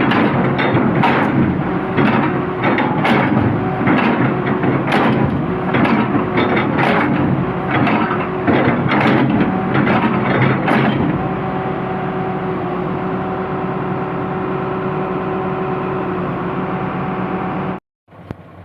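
Repeated hammer blows on metal, roughly one a second, struck to knock loose stubborn excavator blades, over an excavator engine running steadily. The blows stop about eleven seconds in, leaving only the engine, and the sound cuts off just before the end.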